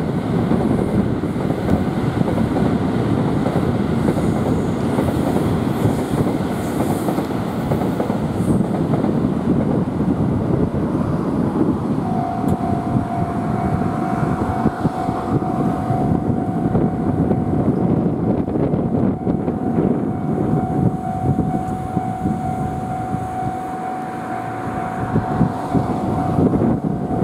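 JR West commuter electric train moving slowly along depot tracks: a steady rumble of wheels and running gear on the rails. About twelve seconds in, a steady high tone joins it.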